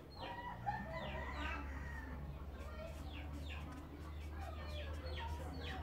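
Birds calling in a rapid run of short, falling chirps, over a low steady hum.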